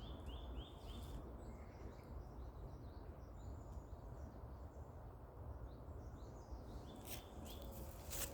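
Small birds calling in woodland: a quick run of short, falling chirps in the first second, then scattered faint chirps, over a steady low rumble of background noise. There are two sharp clicks near the end.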